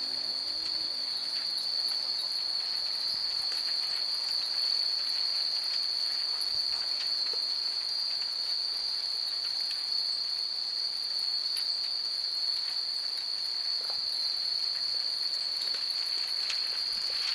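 Many small Japanese wind chimes (fūrin) tinkling in scattered, irregular strikes that grow busier near the end, over a steady high-pitched whine.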